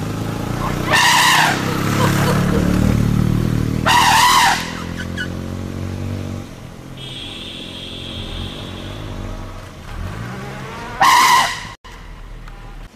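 An Asian elephant trumpeting: three loud, shrill blasts, about a second in, about four seconds in, and near the end. A low drone sounds underneath for the first several seconds.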